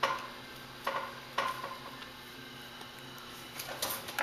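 A coil of wire solder being handled: sharp, light metallic clicks and clinks, three in the first second and a half, then a quick run of smaller clicks near the end.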